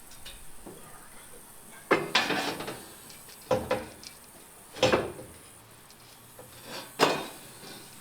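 Metal clattering and knocking as a Jeep CJ5's dash panel is handled and set against the body for a trial fit: four separate knocks, each with a short rattle, spread a second or two apart.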